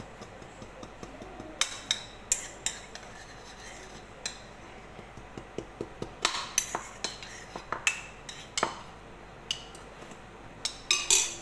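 Metal fork clinking and tapping against a ceramic bowl in irregular strokes, with a quick flurry of clinks near the end.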